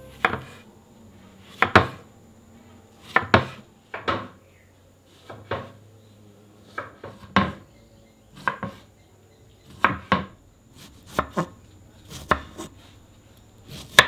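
Kitchen knife slicing strawberries on a wooden cutting board: sharp knocks of the blade meeting the board, about one cut a second and often in quick pairs.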